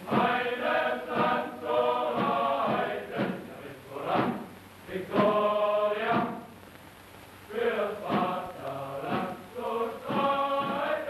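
A chorus of men's voices singing a soldiers' song in phrases, with short pauses between lines, on a thin-sounding 1930s film soundtrack.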